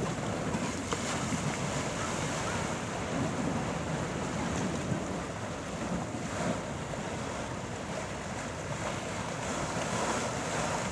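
Sea waves, a steady rushing wash that swells gently in loudness now and then.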